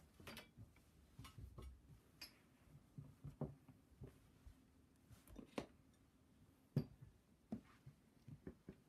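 Faint rustling of cloth towels being spread and smoothed by hand, with scattered light clicks and knocks, the loudest about seven seconds in.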